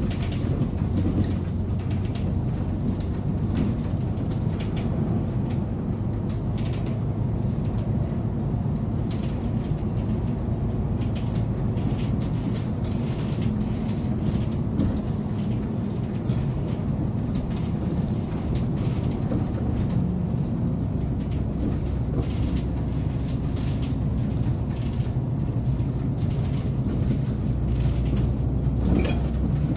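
City bus heard from inside the cabin while driving: a steady low engine and road rumble, with scattered small clicks and rattles.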